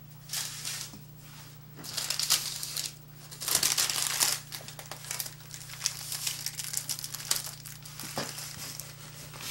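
Wax paper crinkling and rustling as it is rolled tightly around a filled tortilla by hand. Several louder bursts of crackle come in the first half, then lighter crackles.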